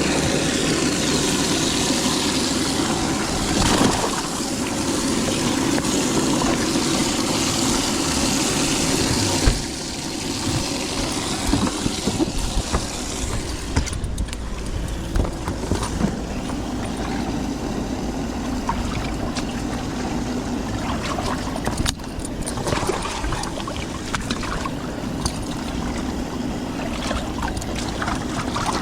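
Boat's outboard engine running, with water noise. The sound drops and turns more uneven about ten seconds in.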